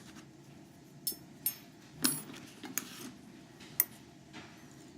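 Small metal lock parts and a handheld tool clicking against each other as the sliders are worked out of a disassembled CX5 high-security cylinder: about five sharp, irregular ticks, the loudest about two seconds in and a very short one near the end.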